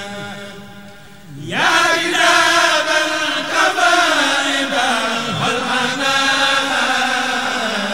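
Chanted recitation of a Mouride khassida, Arabic devotional verse, sung in long drawn-out melodic lines. One line dies away about a second in, and the next begins with a rising swell and is held on.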